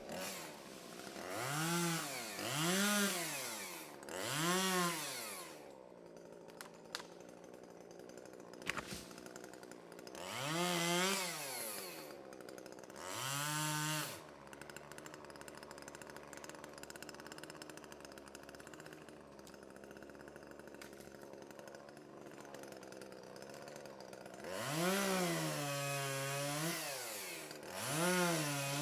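Two-stroke chainsaw engine idling and being revved up and back down again and again: three quick revs, then two more, then a long stretch of steady idle, then a longer held rev and one last rev near the end.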